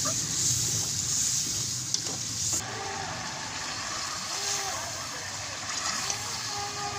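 Chicken frying and sizzling in an aluminium pot over a wood fire while a metal ladle stirs it. The bright high hiss drops away about two and a half seconds in, leaving a duller steady bubbling noise.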